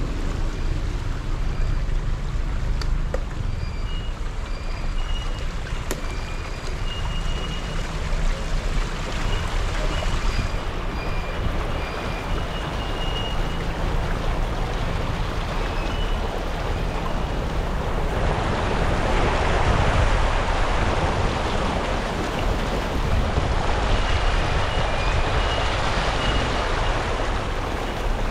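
Car driving through deep floodwater, heard from inside the cabin: a steady low engine and road rumble under the rush and slosh of the bow wave against the car, the water noise growing louder about two thirds of the way through. Short high beeps repeat on and off over it.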